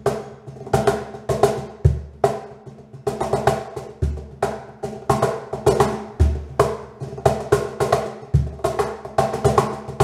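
Solid-birch cajón with internal snares played by hand in a steady groove: sharp slaps and taps at the top edge, with the snares buzzing under them, and a deep bass stroke about every two seconds.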